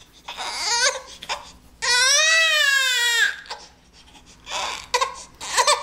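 Infant crying: a few short broken sobs, then one long wail that rises and falls about two seconds in, then more short cries near the end.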